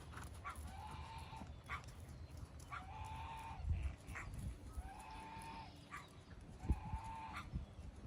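A bird-like call repeated about every two seconds, each a short sharp note followed by a held, steady tone, over a low rumble with a couple of dull thumps.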